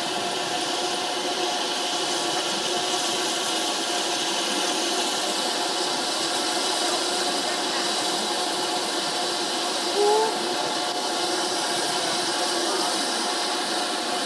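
Steady hiss and hum from a steam locomotive standing in steam, with faint voices in the background. A brief rising squeak comes about ten seconds in.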